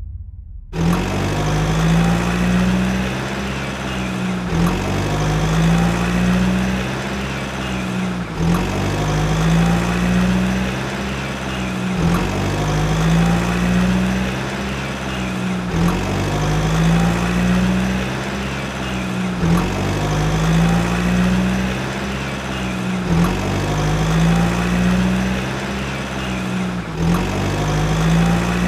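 Car engine idling sound effect, one short clip looped over and over: it repeats about every three and a half to four seconds, with a slight rise and fall in pitch each time.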